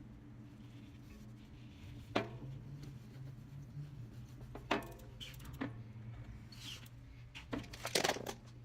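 Steady low hum with a few scattered sharp clicks and light knocks, and a quick run of them near the end.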